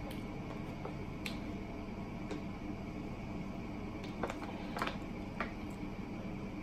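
A few faint, short clicks and crinkles from a plastic water bottle being picked up, handled and set back down on a table, over a low steady hum.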